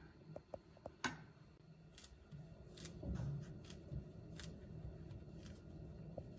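Peeled bananas being broken apart by hand over a glass mixing bowl: a scattered series of small sharp clicks and soft squishes as the fruit snaps and the pieces drop in. The loudest click comes about a second in.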